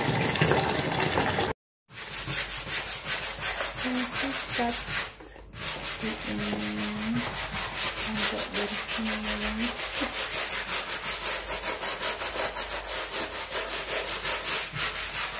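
Stiff plastic hand brush scrubbing wet concrete paving blocks in soapy detergent water to get the moss off, in quick back-and-forth strokes of about four a second. Before that, in the first second or so, tap water pours into a plastic bucket.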